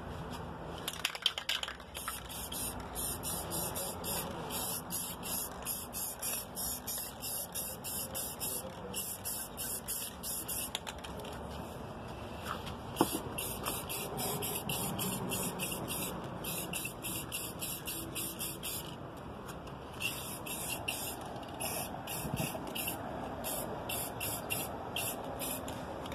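Aerosol can of clear spray paint hissing in many quick short bursts as the nozzle is pressed and released, pausing briefly twice.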